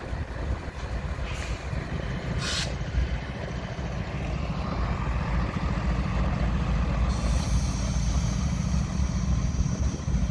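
CSX freight train rolling past, a steady heavy low rumble of locomotives and hopper cars on the rails. There is a short hiss about two and a half seconds in, and a faint steady high whine from about seven seconds in.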